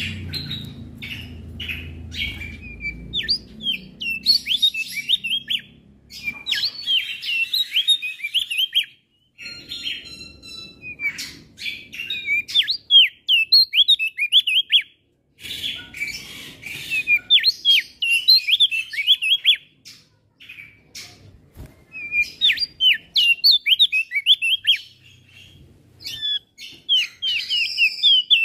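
Male Javan grey-throated white-eye (opior jambul) singing: rapid phrases of high chirping notes lasting a few seconds each, with short pauses between them. A low rumble sits under the first few seconds.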